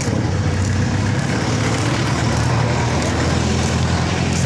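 Steady street traffic noise, with a motor vehicle engine running close by.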